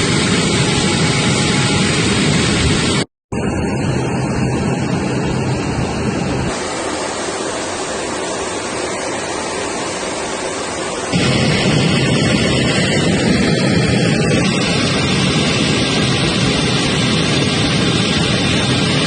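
Steady roar of a Be-200 amphibious aircraft's twin turbofan engines and rushing air, heard from inside the cockpit. It cuts out for a moment about three seconds in. The deep rumble drops away for several seconds mid-way, then the full roar comes back louder.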